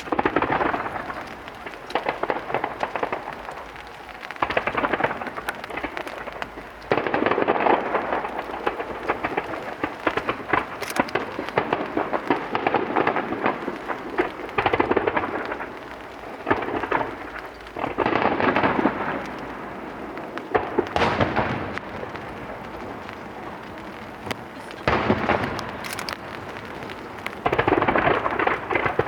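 Starmine fireworks display: a rapid barrage of shell bursts and crackling stars, coming in waves of heavy bursts with lulls between.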